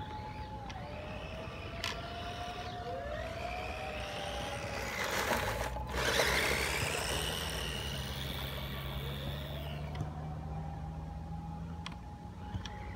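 Electric motor and gears of a Tamiya MF-01X radio-controlled truck whining, rising and falling in pitch as the throttle opens and closes. About five to six seconds in, its tyres scrabble loudly on gravelly dirt as it spins past close by.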